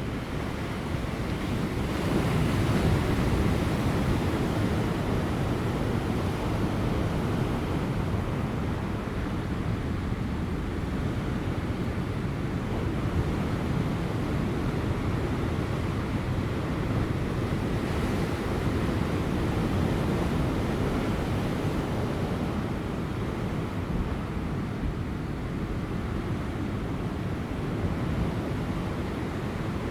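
Large ocean waves breaking on offshore rocks as a continuous low surf rumble that swells and eases every several seconds, with light wind buffeting the microphone.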